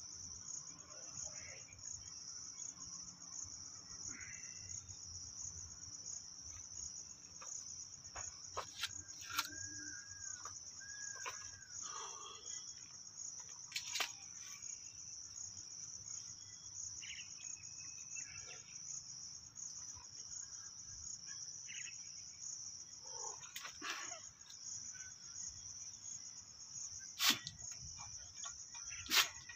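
Steady high-pitched chirring of insects. A couple of short chirps come about ten seconds in, and a few sharp knocks come near the end.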